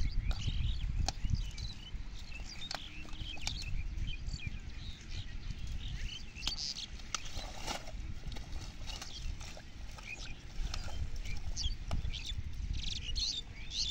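Small birds chirping again and again, over a steady low rumble, with scattered clicks and rustles from water hyacinth being pulled apart by hand in shallow water.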